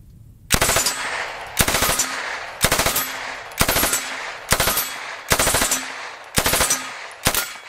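MK760 9mm submachine gun, a copy of the Smith & Wesson 76 / Swedish K, firing full-auto in about eight short bursts, roughly one burst a second.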